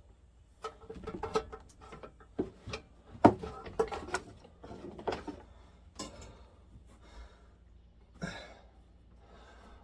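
Irregular knocks, clunks and scraping of hard objects being handled and set down, thickest in the first five seconds. A loud breath follows about eight seconds in.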